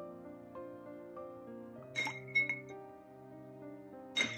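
Ice cubes dropped into a glass of milk, clinking against the glass: two clinks about two seconds in, close together, and another near the end. Soft background music plays throughout.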